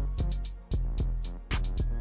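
Background music with a steady drum beat and a deep bass.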